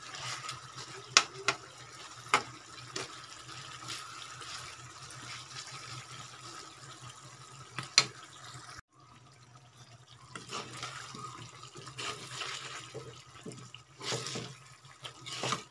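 Spatula knocking and scraping against a wok while chicken adobo simmers in its sauce, with a few sharp clinks standing out.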